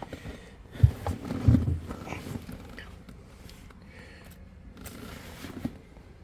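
Two dull thumps, about a second and a second and a half in, then faint clicks and rustling as a hand works under the car's dashboard; no engine is running.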